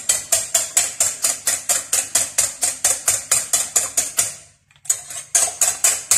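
Wire whisk beating eggs by hand in a glass bowl, clicking against the glass about six times a second, with a brief pause about four and a half seconds in.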